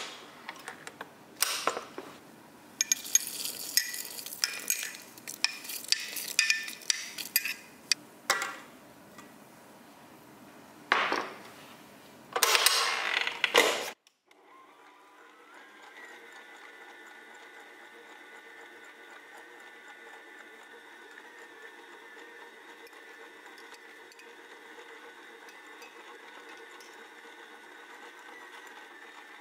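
Knocks and clinks as ingredients and a spoon go into a steel mixing bowl. About halfway through, a stand mixer starts with a brief rising whine and runs steadily, its dough hook mixing the dough, slowing at the very end.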